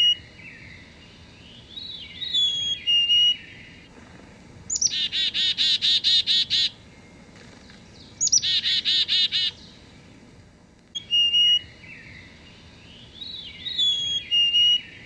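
Recording of a chickadee calling: high whistled notes and short glides, then, about 5 and 8 seconds in, two runs of rapid buzzy "dee" notes at about ten a second, with whistled notes again near the end.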